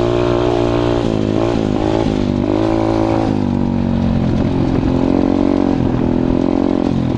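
A KXD 125 pit bike's single-cylinder four-stroke engine under way. The revs rise and fall several times in the first three seconds, then settle lower and steadier.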